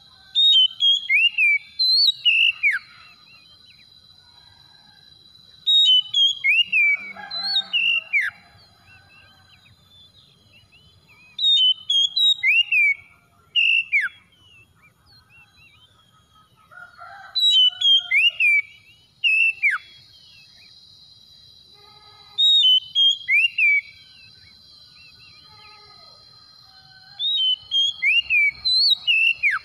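Oriental magpie-robin singing: six short phrases of loud, clear whistles that sweep up and down, one phrase every five to six seconds. A faint steady high whine runs underneath.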